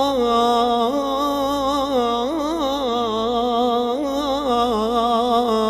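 Male singer performing a mawwal, a free-rhythm Arabic vocal improvisation, through a microphone: long held notes ornamented with wavering melismatic turns, with no distinct words.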